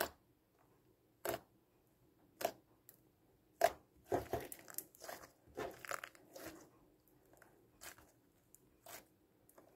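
Homemade PVA-glue slime with beads in it being squeezed and kneaded by hand, giving short wet pops and squelches. They come singly about a second apart at first, crowd together about halfway through, then thin out again.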